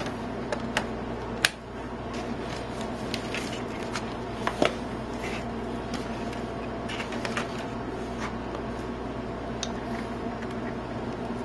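Scattered plastic clicks and knocks from a Dell Latitude D600 laptop being handled as its battery is put back in, over a steady background hum.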